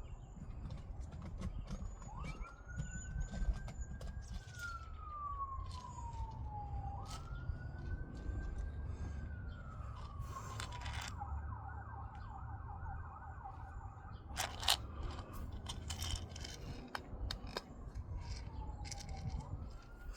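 Emergency vehicle siren wailing: two slow rises and falls, then a few seconds of rapid yelp, then another wail beginning near the end. Scattered sharp clicks and knocks sit over a steady low rumble, with one louder knock about two-thirds of the way through.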